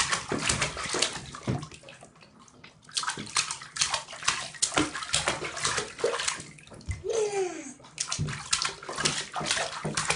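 Bathwater splashing and sloshing in a tub, in quick irregular splashes, as a baby slaps the water. A short voice sound falling in pitch comes about seven seconds in.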